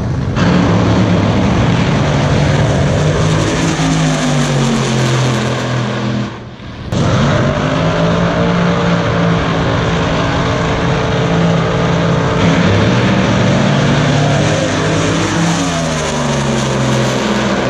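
Loud drag-racing car engines running, the note rising and falling in pitch, with a brief dip in the sound about six and a half seconds in.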